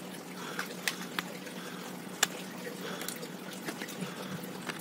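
Redmi 4A's plastic back cover being prised off by fingers: a handful of sharp clicks, spread out, as its snap clips let go, over a steady faint hum.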